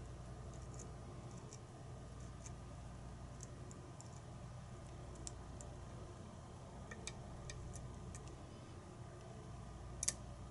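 Faint, irregular small metallic clicks and ticks of a lock pick and tension wrench working the pins of a challenge lock, which stays stuck and won't turn. A sharper click comes about ten seconds in.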